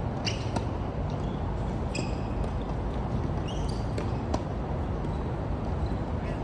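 Tennis balls bouncing and being struck on an outdoor hard court: scattered sharp knocks, often in pairs, over a steady background noise, with a few short high squeaks in between.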